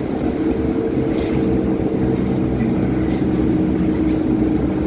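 Interior running noise of a Berlin U-Bahn class H01 train travelling at steady speed through a tunnel: a continuous rumble of the wheels on the rails with a steady low hum over it.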